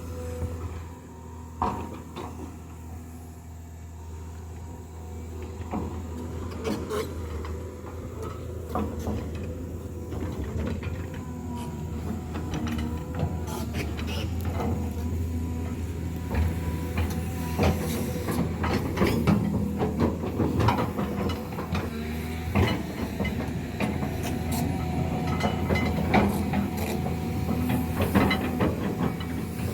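A motor vehicle running steadily with a low drone, with frequent loose rattles and knocks that grow busier and slightly louder toward the end, as when riding over a rough dirt road.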